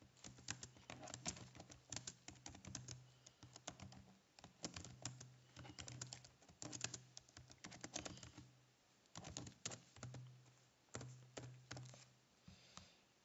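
Faint typing on a computer keyboard, quick runs of key clicks broken by short pauses.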